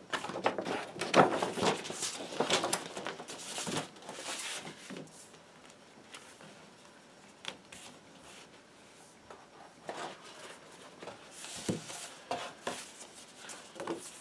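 Paper rustling and crinkling as a large folded paper poster and then paper inner sleeves are handled. The rustling is heaviest in the first four seconds, then turns to lighter scattered handling with a few soft taps.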